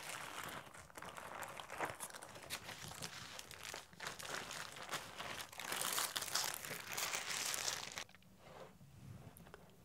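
Baking paper crinkling and rustling as it is peeled off the back of a warm sponge cake sheet. It is loudest near the end and stops abruptly as the paper comes free.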